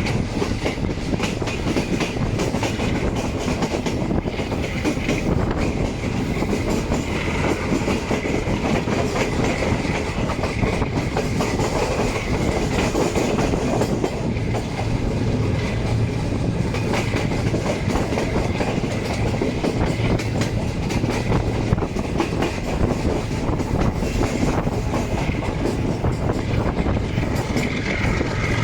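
Passenger train running on the track: a steady rumble with a rapid, dense clatter of wheels over the rails.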